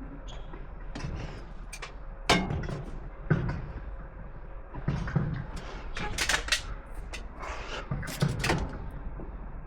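Irregular knocks, clatters and thumps of hard objects being handled, roughly one a second, over a low steady hum, with no power tool running.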